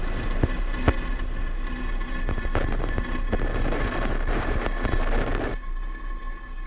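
Falcon 9 first-stage engines during ascent: a low, steady rumble with sharp crackles, and a hiss that swells from about two and a half seconds in and cuts off suddenly near the end.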